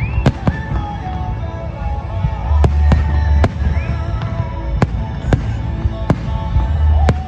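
Fireworks display: about a dozen sharp bangs of bursting shells at uneven intervals, with a couple of short rising whistles, over loud music with a heavy bass.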